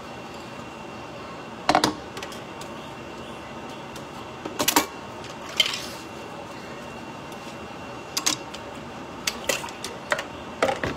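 Kitchen dishes and utensils being handled on a counter: a handful of sharp clinks and clatters, scattered irregularly, over a steady low hiss.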